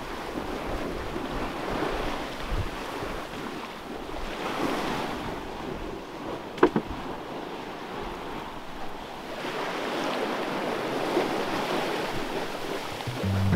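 Sea water rushing and splashing along a sailboat's hull as it sails upwind through chop, swelling and easing as the bow meets each wave, with wind buffeting the microphone. A single sharp knock sounds about halfway through.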